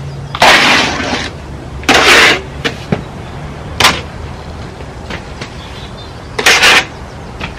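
Steel plastering trowel scraping lime-rich sand render, loading mix off the board and spreading it onto a brick wall: three scrapes of up to about a second each, with a sharp tap near the middle.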